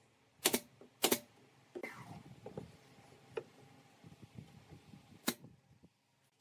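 A nail gun firing two sharp shots about half a second apart into pine boards, followed by lighter knocks and rubbing of the wood being handled, and one more sharp click about five seconds in.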